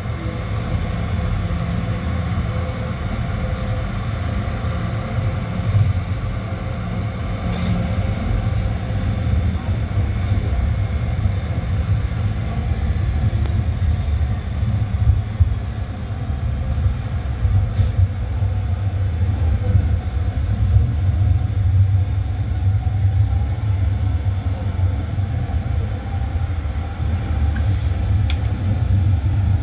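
Tram running along its line: a steady low rumble of wheels on rails, with a few brief clicks along the way.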